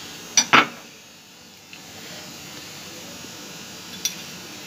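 Two quick taps about half a second in, a plastic spoon knocked against a steel mixing bowl to shake off turmeric, and a faint tap near the end. A steady low buzz runs underneath.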